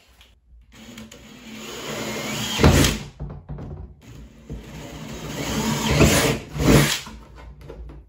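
Cordless drill boring holes through the plastic lid of a cooler. The motor runs twice for about three seconds each time, growing louder as the bit works through, with sharp loud bursts near the end of each run.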